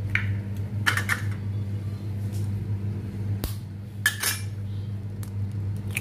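A handful of short, sharp clinks and knocks of kitchenware being handled, spread through the few seconds, over a steady low hum.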